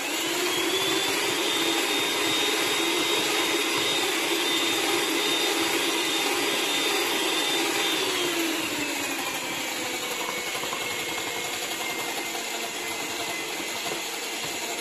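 Electric hand mixer fitted with dough hooks running steadily while kneading a stiff flour-and-pork-lard dough in a stainless-steel bowl, a steady motor whine. A little past halfway the whine slides down in pitch and carries on lower.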